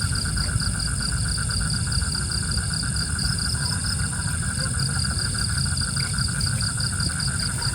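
Insects chirping in a steady chorus of fast, even pulses, over a steady low rumble.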